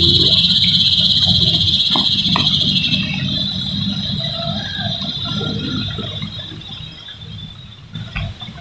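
A loud, high insect buzz from the trees, fading away about three seconds in, over a steady low rumble.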